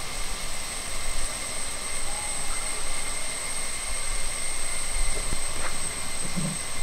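Onion-tomato masala sizzling in a clay pot over a wood fire: a steady hiss with a low rumble underneath, and a couple of faint clicks about five seconds in.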